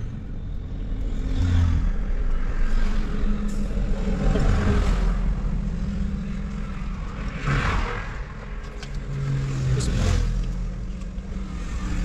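Motor vehicle noise: a steady low engine rumble, with several vehicles passing by, each swelling and fading over about a second.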